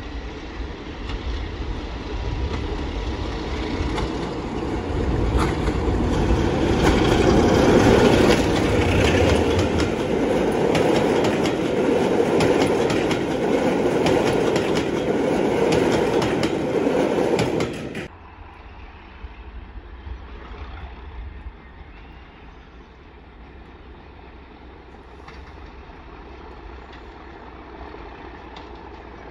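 A diesel locomotive hauling passenger coaches passes close by: engine running and wheels clicking over the rails, loudest about 8 seconds in, cut off suddenly about 18 seconds in. After that comes a much quieter, steady rumble of a second diesel locomotive approaching from a distance.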